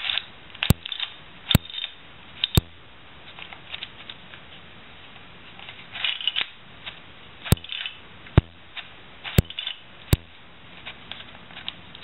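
Plastic pieces of a Latch Pyraminx twisty puzzle clicking and rattling as its faces are turned by hand, with about seven sharper snaps scattered through and a quieter pause in the middle.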